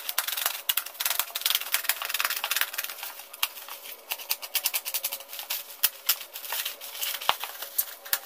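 Woven plastic sack wrapping being slit with a utility knife and torn open by hand: a dense, irregular run of crackling rustles and snaps.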